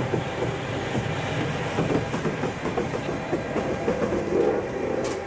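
Bombardier Traxx class 187 Last Mile locomotive rolling past close by, its wheels clicking and knocking over the track with a steady rumble that swells briefly about four seconds in.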